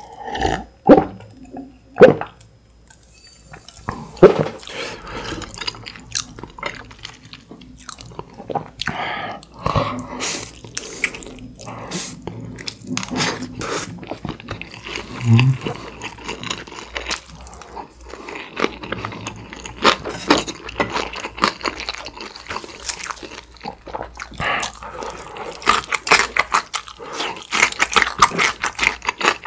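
Close-miked eating sounds: a couple of loud gulps of water about a second and two seconds in, then steady chewing and crunching of food with wet mouth clicks, thickest near the end.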